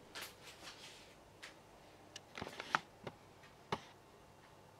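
Faint handling sounds of hands shaping a rolled yeast-dough bun on a wooden tabletop: soft rustles in the first second, then a handful of small clicks and taps.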